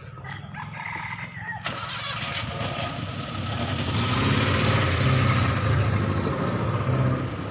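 A motor vehicle engine running close by, growing louder from about two seconds in, loudest a little past the middle and easing slightly near the end.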